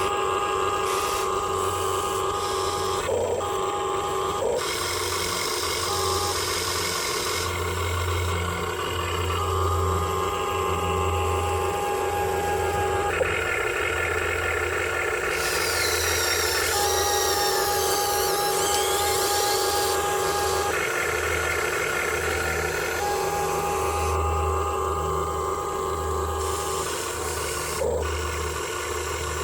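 Huina 1580 remote-control excavator's small electric motors and gearboxes whirring as it digs. The whine changes in steps every few seconds as different motions start and stop.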